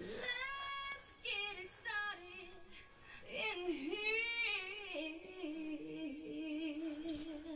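A woman singing high and unaccompanied, gliding between notes, then holding one long wavering note through the last couple of seconds.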